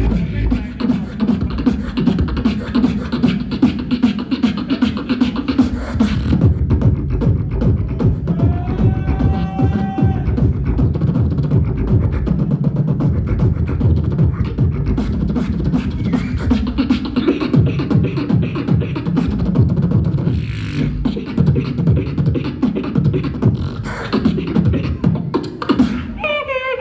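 Solo beatboxing through a handheld microphone: a dense, fast rhythm of kick, bass and snare sounds made with the mouth, with a short pitched sung tone a little past a third of the way in.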